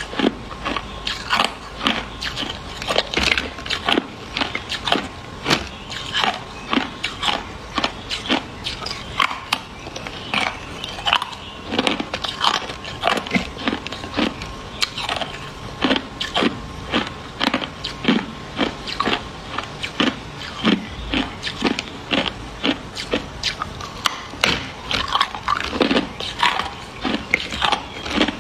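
Clear, hard ice being bitten and chewed close to the microphone: a run of sharp cracks and crunches, about two or three a second, without pause.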